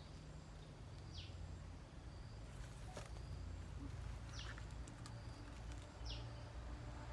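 A bird calling: three short notes, each falling in pitch, a couple of seconds apart, over a low steady rumble.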